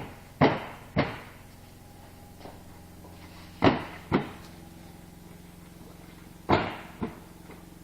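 Sharp knocks in three pairs, each pair half a second apart: a cart shelf being knocked down into place on its frame.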